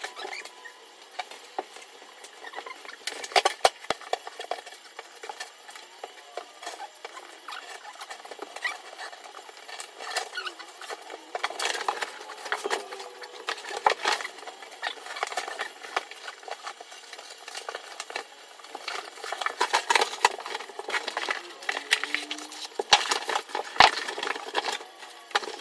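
Roll of sheet vinyl flooring being unrolled and handled over a bare subfloor: irregular crackling, rustling and tapping of the stiff sheet, in several busier spells.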